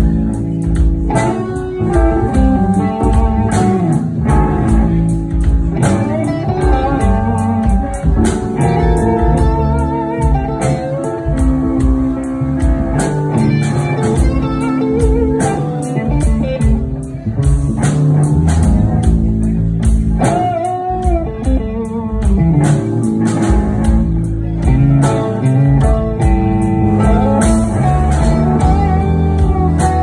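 Live blues band playing: electric guitars over drums, bass guitar and keyboard.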